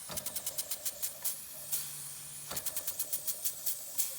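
Bing Reverso toy steam engine running in reverse on a hexamine-tablet fire. Its exhaust puffs come quick and sharp, about seven a second, in uneven runs broken by short gaps, over a steady hiss of steam.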